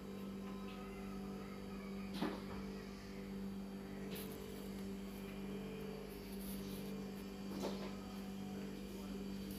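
Steady low electrical hum, with two faint clicks, one about two seconds in and one near the end.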